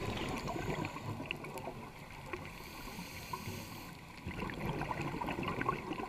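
Underwater sound picked up by a diver's camera: scattered clicks and crackles over a low rumble, growing a little louder about four seconds in.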